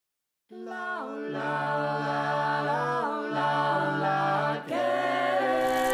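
A small vocal group singing a cappella folk harmony: several voices hold a chord, a low bass note joins about a second in, and the chord shifts every second or two. It starts suddenly after a brief silence at the beginning.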